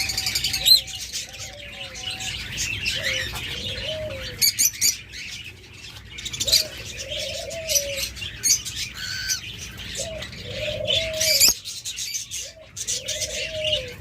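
Caged doves cooing over and over in low, rolling coos, with high chirps and twitters from smaller cage birds mixed in and a sharp click near the end.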